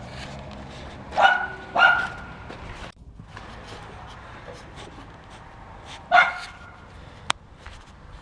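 A dog barking: two barks in quick succession about a second in, and one more about six seconds in.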